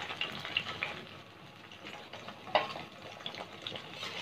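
Baby eggplants sizzling faintly in hot ghee in an iron kadai as they are scooped out with a steel ladle. A light clink of the ladle against the pan comes about two and a half seconds in.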